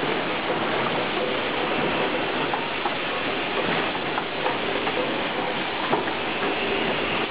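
Rows of rotary blow molding machines for PE bottles running together on a production floor: a steady, dense rushing noise with scattered light clicks and clatter.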